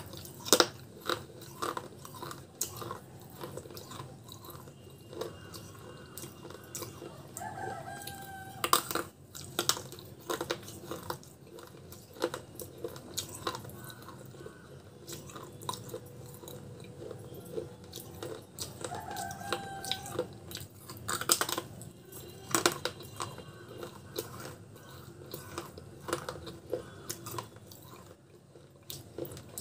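Biting and chewing hard fired terracotta pot shards, a run of sharp crunches and cracks. The loudest snaps come about half a second in, around nine seconds and around twenty-one seconds. Twice, about eleven seconds apart, a short pitched call from an animal sounds in the background.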